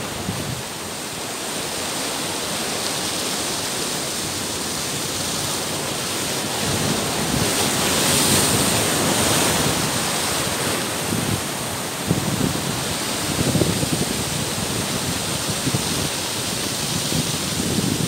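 Heavy sea surf breaking and churning against a rocky shore: a continuous rushing wash of foaming water that swells louder about eight seconds in as a big wave surges through the rocks.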